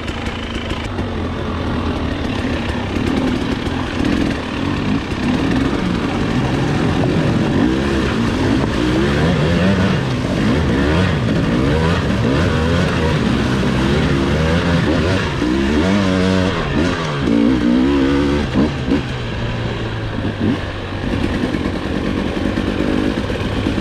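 Husqvarna enduro dirt bike engine ridden off-road, its pitch rising and falling again and again as the throttle is worked. About halfway through, the bike splashes through a shallow river crossing.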